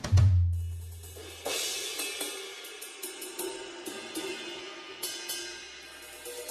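Yamaha DTX8 electronic drum kit played through its module: a low drum hit at the start that rings for about a second and a half, then a cymbal crash followed by a run of cymbal and hi-hat strikes.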